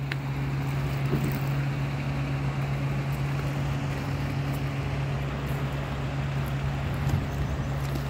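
Steady low engine-like hum under an even rushing noise, holding constant throughout.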